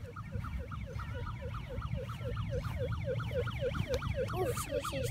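Electronic siren sound from a pink ride-on toy police motorcycle's speaker: a fast warbling yelp that sweeps up and down about six times a second.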